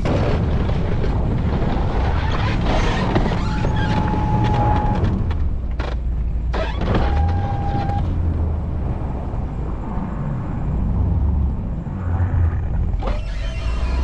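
Snowplow pickup truck's engine running steadily while the plow pushes and scrapes snow, with a rushing hiss over the first half. Two steady whines of about a second and a half each come a few seconds in.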